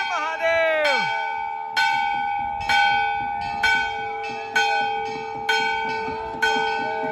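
Temple bell struck over and over, about once a second, each stroke ringing on into the next. Voices call out during the first second.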